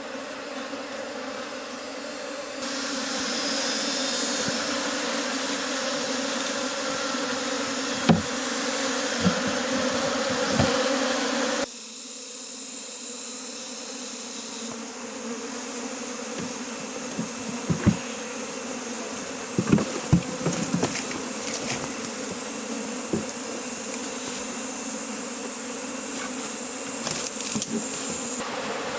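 Many honeybees buzzing steadily in a dense hum, with a few short knocks now and then. The hum steps up in loudness about three seconds in and drops back about twelve seconds in.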